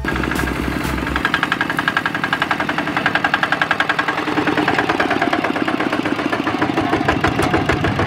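Single-cylinder diesel engine of a two-wheel walking tractor running steadily under load, pulling a trailer, with a rapid, even knock of firing strokes. The low end of a music track cuts off about a second in.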